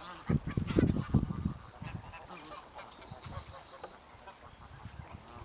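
A flock of Canada geese honking, stirred up and alarmed by a person walking in among them. The honking is loudest in the first second and a half, then quieter.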